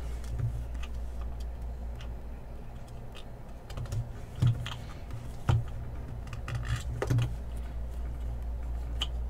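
Scattered light clicks and taps of trading-card packaging and plastic cases being handled and opened, a few sharper clicks about four and a half, five and a half and seven seconds in, over a steady low hum.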